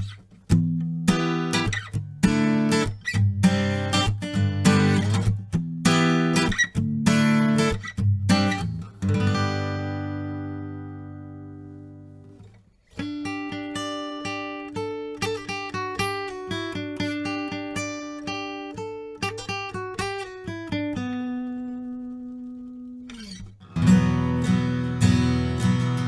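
Oscar Schmidt OG2SMA dreadnought acoustic guitar with a spalted top, played unplugged into a microphone. Strummed chords let ring and fade out, then a melody of single picked notes ending on a held note, and strumming starts again near the end.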